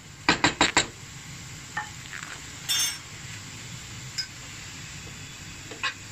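Spatula stirring grated carrots frying in a frying pan: four quick knocks against the pan about half a second in, a scrape near the middle, then a few single knocks, over a steady low sizzle.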